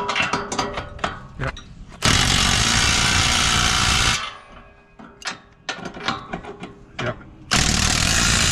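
Ryobi cordless impact driver running bolts into the steel frame of a basketball hoop's backboard in two bursts of about two seconds each, the first about two seconds in and the second near the end, with clicks and knocks of handling the tool and frame in between.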